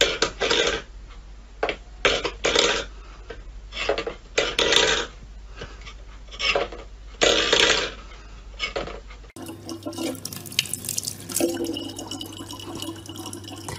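Stainless steel bowl pushed by a cat's paw across a wooden floor, in about ten short, irregular scrapes and clanks. After a cut, a thin stream of tap water trickles steadily into a plastic bottle.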